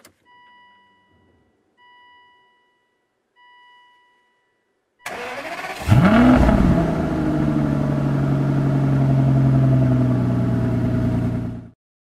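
Three short, evenly spaced electronic beeps. Then, about five seconds in, an Aston Martin DB9's V12 engine cranks and fires, flares up in revs and drops back to a steady idle, which cuts off abruptly near the end.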